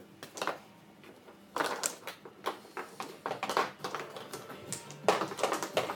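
Mahjong tiles clacking against each other and the racks as players sort their hands: irregular sharp clicks, few in the first second or so, then coming thick and fast.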